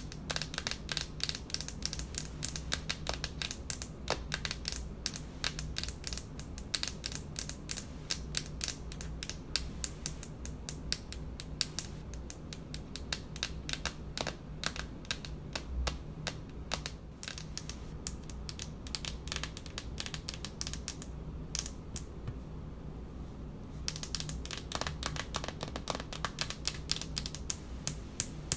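Long fingernails tapping fast on a hard speckled countertop, a dense stream of quick clicks that thins out briefly about three-quarters of the way through.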